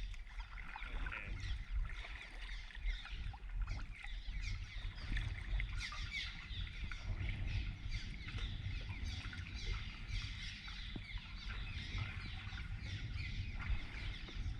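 A flock of nesting birds twittering, many short chirps overlapping without a break, over a steady low rumble.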